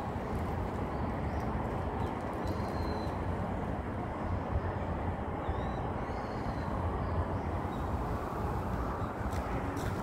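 Steady low outdoor rumble with a few faint bird chirps in the first half.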